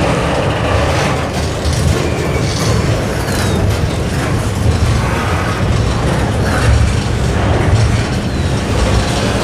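Double-stack container well cars of a slow-moving CSX freight train rolling past close by: a steady low rumble of steel wheels on the rails.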